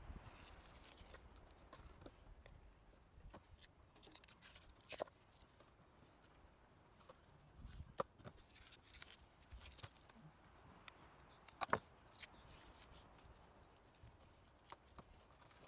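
Faint handling sounds of the membrane being peeled off raw pork ribs in an aluminium foil tray with a knife and fingers: soft tearing and scattered light clicks, the sharpest about 8 and 12 seconds in.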